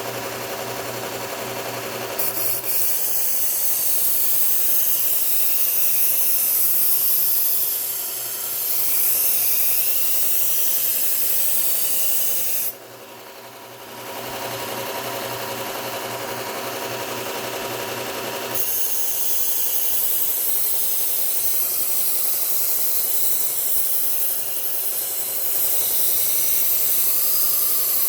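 Bucktool slow-speed belt sander running with a Cubitron 120-grit belt while a chef's knife edge is ground on it in passes, establishing the bevel: a steady grinding hiss over the motor hum. The grinding stops for about a second just under halfway through, then resumes.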